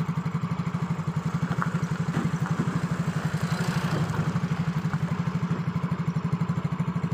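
A small engine running steadily at idle, a low, even, rapid pulsing.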